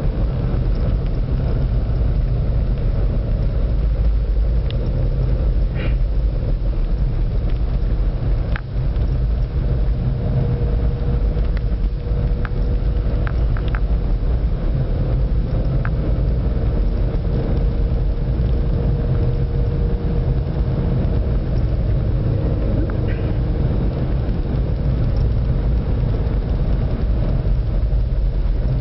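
Car driving on a snow-packed road, heard from inside the cabin: a steady low rumble of engine and tyres, with a faint hum and a few light ticks.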